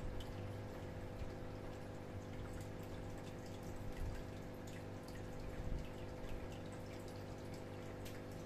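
Small 5 W aquarium water pump and filter running: a steady low hum, with water trickling and dripping back into the tank in scattered small splashes.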